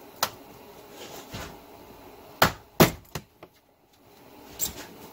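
Plastic cargo-area side trim panel of a 2015–2019 Subaru Outback being pulled loose, its clips popping free: a series of sharp clicks and knocks, the two loudest close together about halfway through.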